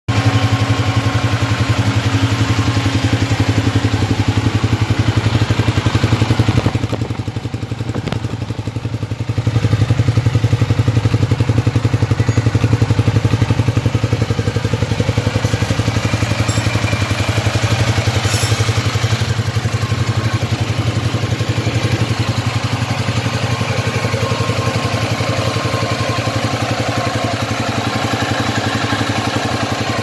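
Ducati Diavel's V-twin engine idling steadily. It drops briefly in level for a couple of seconds about seven seconds in.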